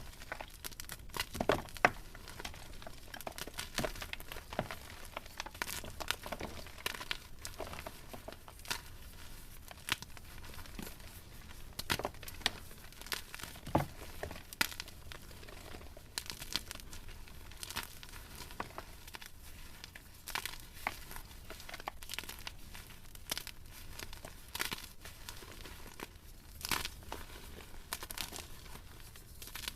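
Blocks of soft, crunchy gym chalk being crushed and crumbled close to the microphone: irregular quiet crunches and crackles, with a few louder snaps.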